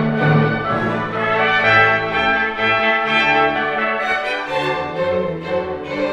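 Instrumental music of slow, held chords, with no voices.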